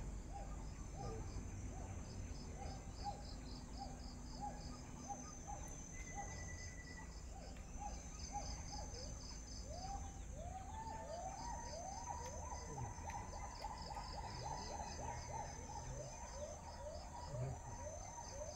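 Faint forest ambience. Insects trill in short pulsing trains over a steady high whine, and an animal repeats a short call that slides down in pitch, about twice a second at first and faster and overlapping from about halfway.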